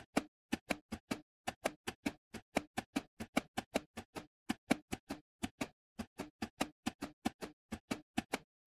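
Keys of a simulated Enigma I cipher machine clacking in a quick, steady run of typing, about four to five key presses a second, as a message is encrypted letter by letter.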